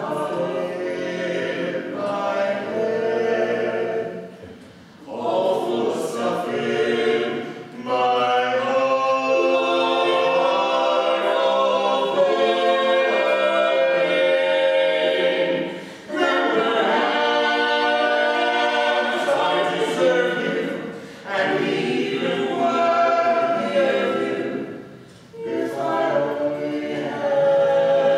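Barbershop-style a cappella singing in close harmony: voices holding sustained chords in phrases, with brief pauses for breath between phrases.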